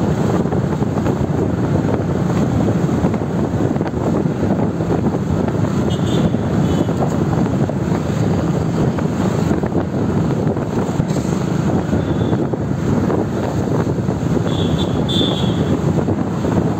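Steady engine drone and wind rush of a moving two-wheeler, with street traffic around it.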